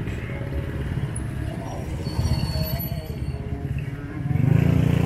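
Street traffic: motor vehicles and motorbikes running by, with a louder low rumble swelling in about four seconds in.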